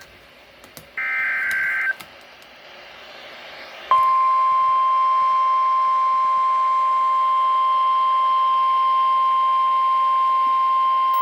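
NOAA Weather Radio emergency alert: about a second in, a one-second burst of the warbling digital SAME header tones, then receiver hiss. From about four seconds in comes the steady, loud 1050 Hz warning alarm tone that announces a warning broadcast.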